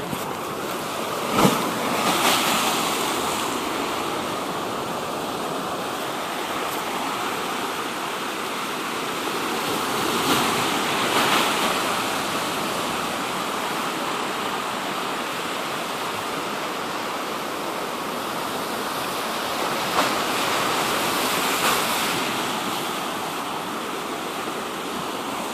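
Sea surf washing onto the shore: a continuous rush that swells three times as waves break, with a brief sharp knock about a second and a half in.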